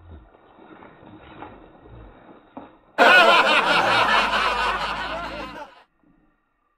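Loud laughter starts abruptly about three seconds in and fades out over almost three seconds. It is far louder than the angler's own voice around it, typical of a laugh sound effect added in editing.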